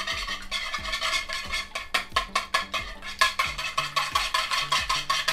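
A wire whisk beating eggs in a bowl, its wires clicking rapidly against the bowl about five times a second. Background music with steady low notes plays underneath.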